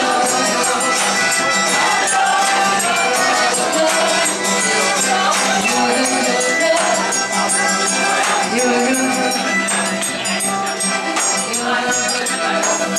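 Live folk band playing a song: voices singing over accordion, acoustic guitar and a large metal drum, with jingling hand percussion.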